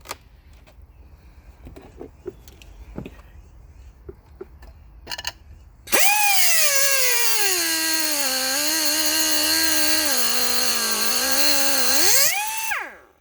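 Light metal clinks and taps, then about halfway in a power grinder starts on the steel bracket of a Kawasaki KD80M frame. Its whine drops in pitch as it bites into the metal, rises as it comes off the work, and spins down just before the end.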